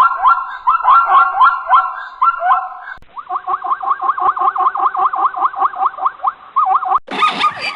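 An animal giving rapid, repeated high yelping calls, about five a second, in clips that cut abruptly from one to the next.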